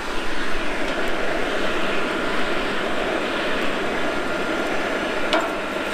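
Coal forge fire under forced air, a steady rushing roar with a faint motor whine from the blower, while a railroad spike heats to a glow. A light tap sounds near the end.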